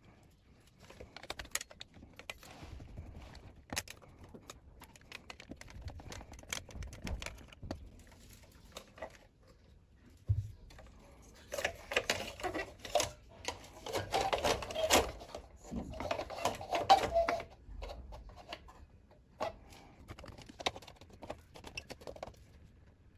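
Small plastic keyboard parts clicking and tapping as a repaired power-button board is handled and fitted back into the keyboard case, with a denser, louder spell of clattering about halfway through.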